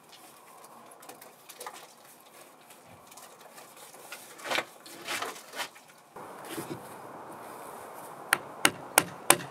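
A hand brace with a long auger bit boring into a log, with faint rasping of wood and a few knocks as the bit is drawn out. Near the end, a hammer begins tapping a wooden dowel into the top log, sharp even strikes about three a second.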